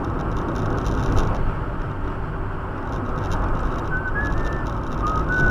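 Steady road and engine noise inside a moving car. Near the end a few short high whistled notes step up and down in pitch.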